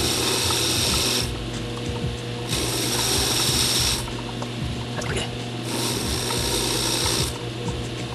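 Homemade concrete-bed metal lathe running with a steady motor hum while an indexable carbide tool turns down a spinning aluminium plate. The cut comes in three spans of high hiss, each about a second and a half, with short pauses between them as the tool is fed in and backed off.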